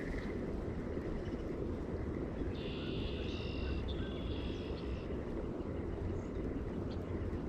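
Steady low outdoor rumble, with a high-pitched animal call in several parts from about two and a half to five seconds in.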